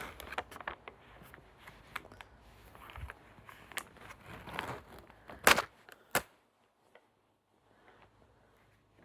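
Plastic packaging being handled, crackling and clicking, with two sharp snaps about five and a half and six seconds in.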